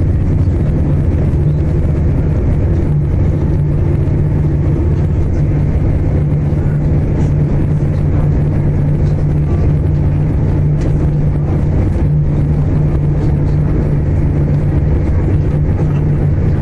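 Interior running noise of a Class 221 Super Voyager diesel-electric train at speed: a steady low drone from its underfloor Cummins diesel engine mixed with wheel and track rumble.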